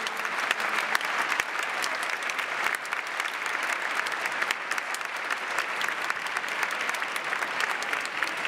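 A large audience applauding, many hands clapping steadily without a break.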